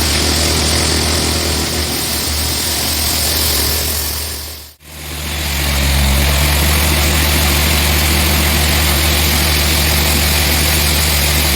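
Sawmill machinery running steadily, a low engine hum under a broad hiss. The sound dips out briefly about five seconds in and comes straight back.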